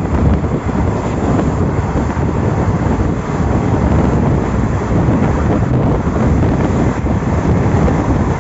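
Passenger train running at speed, heard at an open coach window: a steady low rumble of wheels on the rails, with wind buffeting the microphone.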